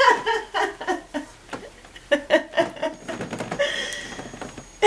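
Soft voice sounds, a woman's chuckling and a baby's cooing, then rustling near the end as a blanket is handled over the baby.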